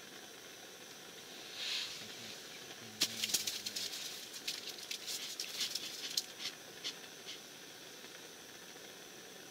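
Clothing and ice-fishing tackle being handled: a brief rustle, then a quick run of sharp clicks and rustles from about three to seven seconds in, over a steady hiss.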